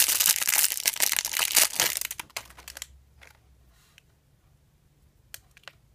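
Packaging crinkling and crackling as it is handled for about two seconds, then stopping, followed by a few faint clicks.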